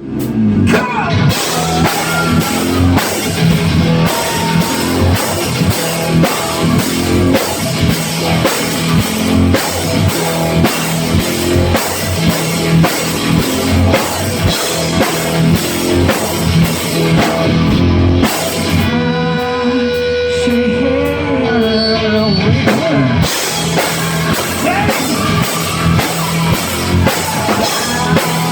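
Rock band playing, with drums, electric guitar and singing. About two-thirds of the way through, the drums drop out for a few seconds under a long held note that slides down, then the full band comes back in.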